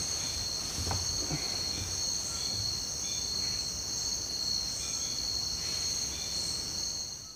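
Night insects trilling steadily in two unbroken high tones, cutting off abruptly near the end.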